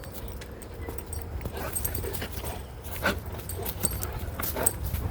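Dog whining in a string of short, high calls that start about a second and a half in, eager to chase a quail held in front of it.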